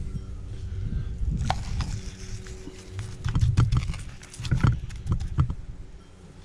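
Hands rubbing seasoning into the skin of whole fish on a plate: irregular soft slaps, scrapes and knocks, the loudest from about three to five and a half seconds in.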